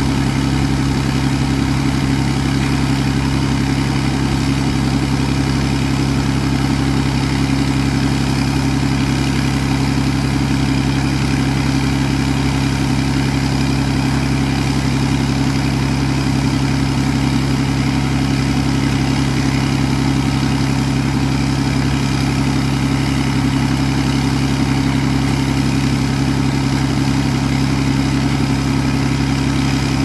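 Atlas Copco XA 420 portable diesel air compressor running steadily: a constant, even low engine hum with a light noise wash above it, with no change in speed.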